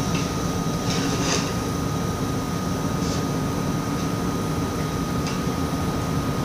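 Steady low mechanical hum with a constant thin whine over it, and a few faint light clicks, one about a second in and a couple more over the next few seconds.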